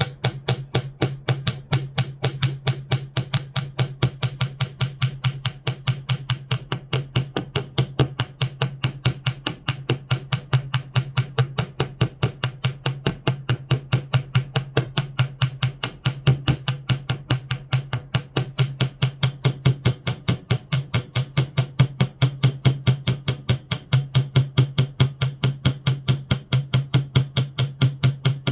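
Alga electronic toy giving out a fast, even train of clicks over a steady low hum.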